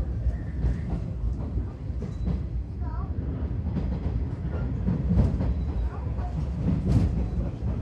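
Cabin sound of a JR 115 series electric train running: a steady low rumble of wheels on track, with the clack of wheels over rail joints, two sharp ones about 5 and 7 seconds in.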